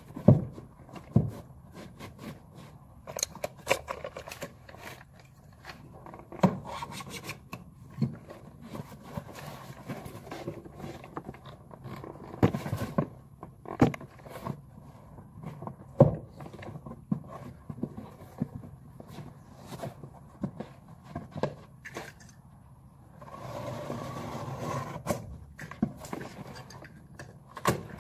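Carpet tiles being handled and pressed down onto wooden stair treads: the tiles scraping and rubbing against the steps, with scattered knocks and taps. A longer stretch of scraping comes a few seconds before the end.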